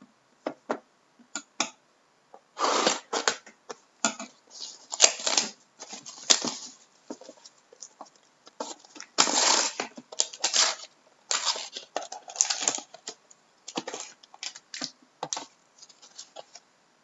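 Trading card box packaging being torn open and cards handled: an irregular series of short tearing, scraping and rustling noises.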